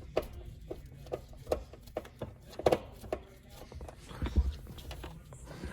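Light clicks and knocks of parts being handled in a car interior, about two a second, then a dull thump about four seconds in.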